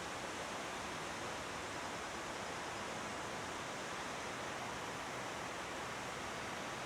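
Waterfall rushing steadily: an even, unchanging noise of falling water.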